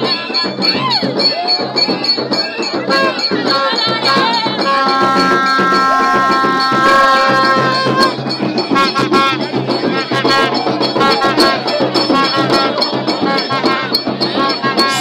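A crowd of worshippers singing together as they walk in procession, over sharp rhythmic percussion. About five seconds in a horn holds one steady note for about three seconds.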